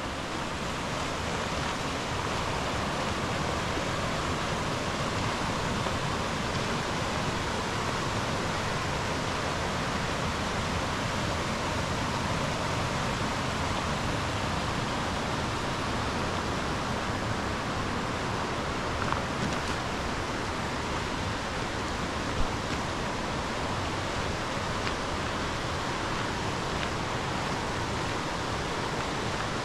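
Steady rushing of a mountain stream, a constant hiss of fast water with no change through the stretch.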